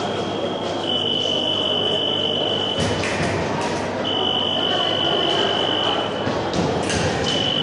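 Electric fencing scoring machine sounding its long steady touch signal three times, each for about two seconds, over a constant hall murmur.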